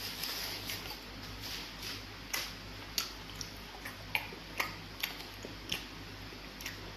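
Mouth smacking while chewing food: sharp, irregular wet clicks of the lips and tongue, about eight of them, roughly one every half second, starting about two seconds in.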